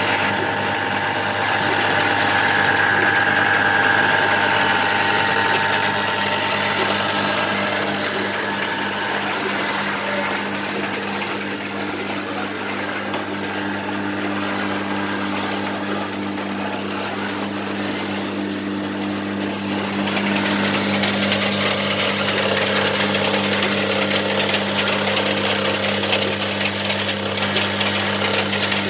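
DTF (direct-to-film) printer running: a steady machine hum of motors and fans. It grows a little louder and hissier about twenty seconds in.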